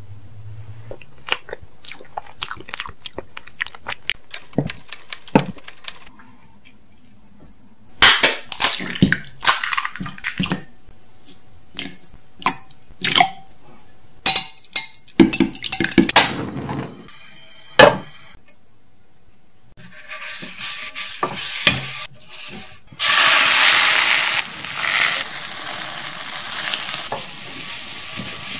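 A run of close-up kitchen sounds: light spoon clicks and taps, then sharper clicks and clatter of utensils. From about twenty seconds in there is a steady hiss of egg frying in an oiled rectangular tamagoyaki pan, loudest for a couple of seconds past the middle of that stretch.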